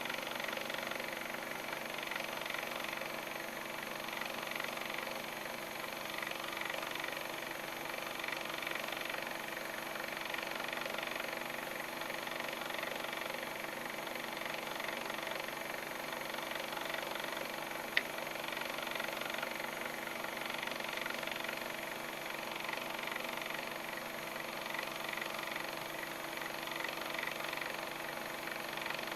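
Electric winch motor running steadily while raising a poultry feeder line, a constant mechanical hum. There is a single sharp click about 18 seconds in.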